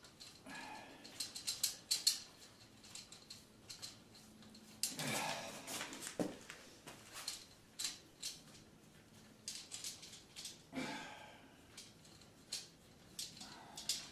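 Irregular metallic clicks and rattles from a garage door opener's roller drive chain and its steel rail as the chain is handled and fastened at the rail's end, with a few longer clinking, scraping runs among the sharp clicks.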